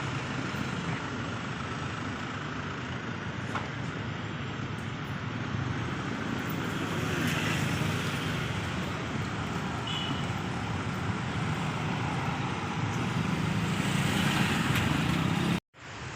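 Steady rumble of moving vehicles, swelling slightly before cutting off suddenly near the end.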